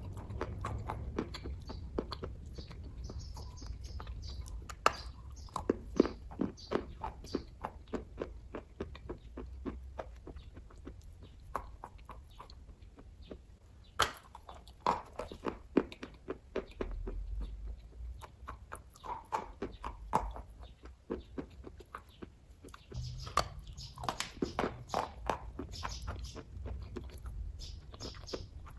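A person chewing kaju katli (cashew fudge): short, wet mouth clicks that come in runs of several, with a few quieter pauses between runs.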